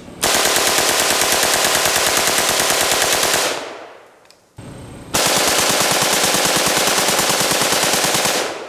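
Full-auto AK-47 firing 7.62×39 in two long bursts of rapid shots, each about three seconds, with a short pause between.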